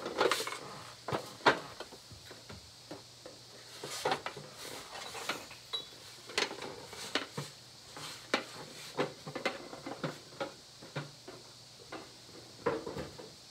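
Old tin carrying box being handled and turned over, its small lidded metal canisters inside clinking and rattling: a run of irregular light knocks and clinks.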